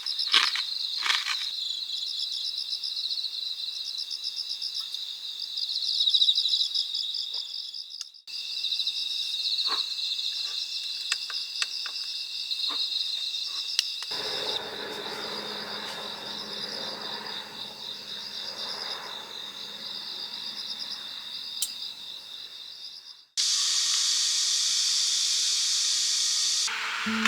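Night insects, crickets among them, chirping in a dense, steady high trill, with a few faint clicks. Near the end the sound switches abruptly to a louder, even hiss.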